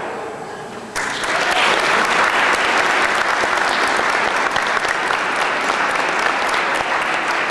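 Audience applause that breaks out suddenly about a second in and keeps going steadily.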